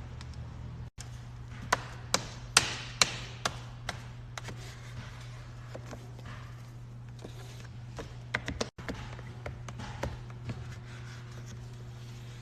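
Irregular sharp taps and knocks, several in quick clusters, over a steady low hum.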